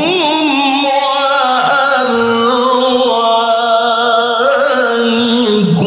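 Male qari reciting the Quran in melodic tilawah style into a microphone: one long melismatic phrase, sung with a wavering, ornamented pitch and ending with a fall in pitch near the end.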